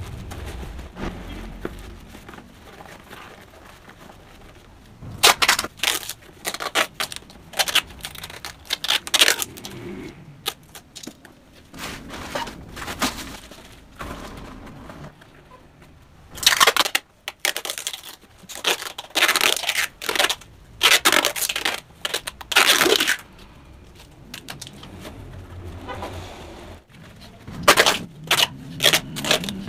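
Electric arc welding in short, irregular bursts, each a second or less, crackling and spitting: tack welds being laid on a motorcycle exhaust pipe.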